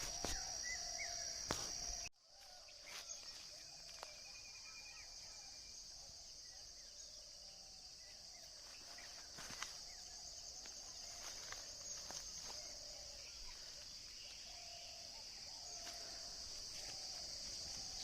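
Steady, high-pitched chorus of insects in an orchard, with scattered soft clicks; the sound drops out abruptly for a moment about two seconds in.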